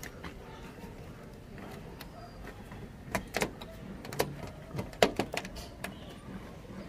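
Hands working the rubber door seal and trim along the roof edge of a Nissan NV350 van to tuck wiring behind it: a scatter of sharp clicks and knocks, mostly between three and five and a half seconds in.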